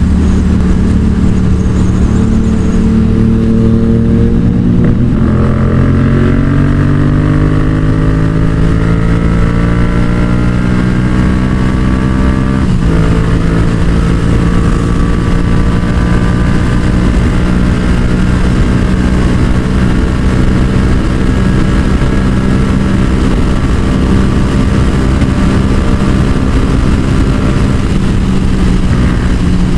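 Yamaha XSR700's parallel-twin engine running through a Yoshimura exhaust under load at speed: its pitch climbs steadily through the gear, drops sharply with an upshift about 13 seconds in, then holds at a steady cruise. It runs smoothly without backfire, which the rider credits to a Booster Plug richening the fuel mixture so the engine no longer runs lean.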